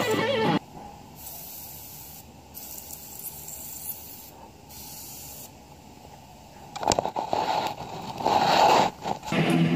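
Airbrush spraying paint: a soft hiss of air that starts and stops several times as the trigger is worked, then louder, closer bursts of spray hiss near the end.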